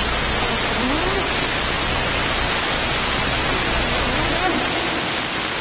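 Steady, loud static hiss from interference in the audio feed. A woman's voice is faintly audible beneath it.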